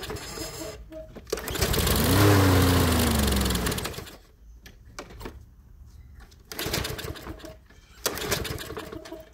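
Toro Recycler lawnmower engine being pull-started: about a second and a half in, a pull on the recoil starter spins it up, and it whirs and winds down over about two seconds without catching, its fuel system still dry after a carburetor repair. Quieter clattering follows later.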